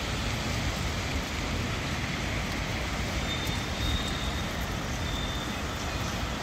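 Steady rumble and hiss of city traffic. A faint high whine comes and goes twice in the middle.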